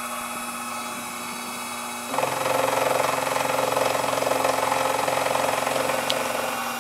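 Sherline vertical mill's spindle running while an end mill takes a light 25-thousandths cut across a strap clamp. About two seconds in the cut gets clearly louder and stays steady.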